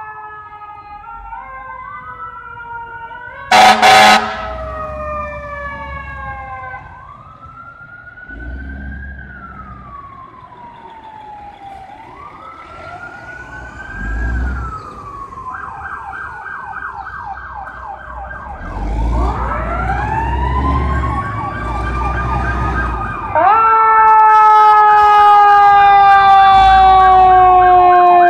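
Fire truck sirens from several passing trucks, wailing and yelping over one another. About four seconds in come two very loud short horn blasts. Near the end a siren winds up, then a loud siren tone slowly falls in pitch as a fire truck passes close by.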